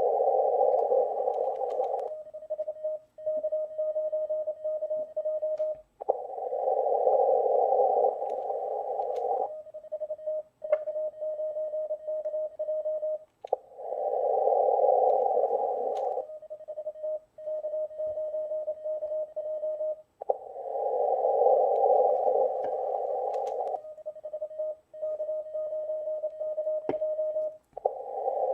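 Morse code CW sidetone: a single steady tone near 650 Hz keyed out in the same call about four seconds long, four times over. Between the calls come two- to three-second stretches of hissing HF band noise through the receiver's narrow CW filter. This is a contest station calling CQ over and over on its run frequency and listening for replies between calls.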